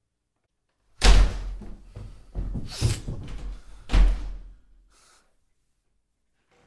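Heavy bangs and thuds: a sharp bang about a second in, rough clattering and knocking, then a second loud bang about three seconds after the first that dies away quickly.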